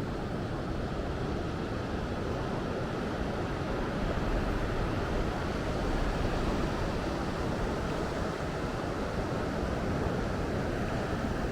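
Ocean surf breaking on the beach: a steady rush of waves that swells slightly about halfway through.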